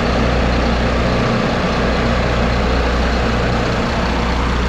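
A sportfishing boat's inboard diesel engine idling steadily, heard close up through the open engine-room hatch.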